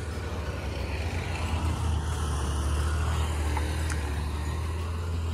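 A road vehicle's engine running steadily, a low rumble that grows a little louder in the first couple of seconds and then holds.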